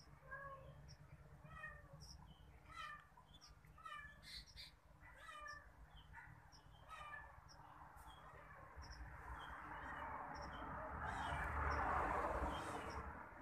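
A cat mewing faintly and repeatedly in short calls, about one or two a second, for most of the first eight seconds. After that a rushing noise swells up and fades again near the end.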